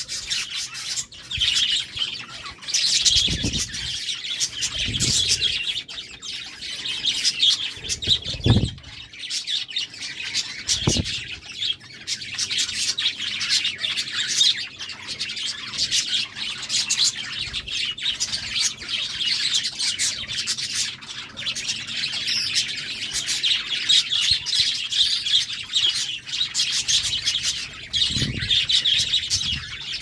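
A flock of budgerigars chattering and chirping continuously in a dense, busy warble. A few brief low thuds break in here and there.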